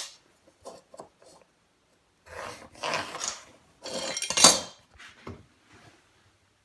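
A straight line being scribed along a square on a vinyl plank. A sharp click and a few light clinks as the square is set, then two scraping strokes along its edge, the second louder.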